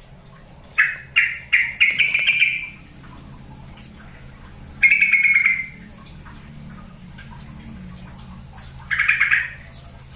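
Sooty-headed bulbul calling: a quick run of short chirpy notes about a second in that runs into a longer warbling phrase, then a single falling call near the middle and another near the end.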